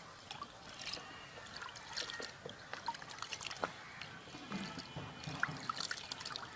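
Hands washing small needlefish in a clay bowl of water: water sloshing and splashing, with many small irregular wet splashes and clicks as the fish are rubbed and turned over.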